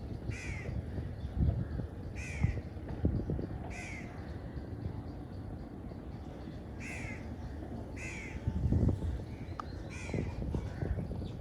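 Crows cawing: about seven short calls at irregular intervals of one to three seconds, over a low rumble with occasional thumps.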